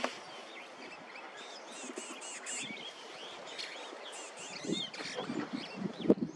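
Birds chirping over and over in many short, arched calls against a hissy natural background. In the last couple of seconds, low muffled bursts come in, with one sharp knock about six seconds in.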